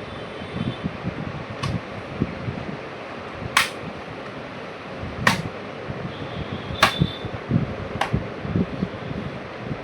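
Plastic laptop case being pressed shut, five sharp clicks spread a second or two apart as the bottom cover's clips snap into place, over steady handling rustle.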